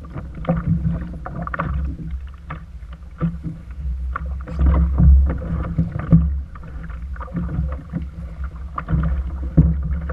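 Low wind rumble on the microphone and water sloshing against a plastic kayak hull, with many short sharp clicks and knocks as a trolling rod and reel are handled. The rumble swells to its loudest about halfway through.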